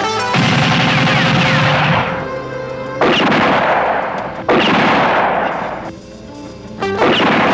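Film shootout gunfire: four loud volleys of rifle and pistol shots, each trailing off over a second or so, over a steady music score.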